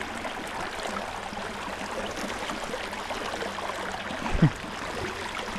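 Creek water running and trickling steadily over rocks, with a brief low thump about four seconds in.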